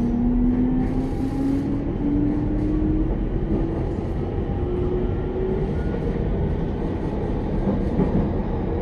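Mitsubishi IGBT-VVVF inverter and traction motors of a Sotetsu 10000 series train whining in a steadily rising pitch as the train accelerates. The whine rises for about five seconds and then fades, leaving the rumble of the wheels on the rails, heard inside the passenger car.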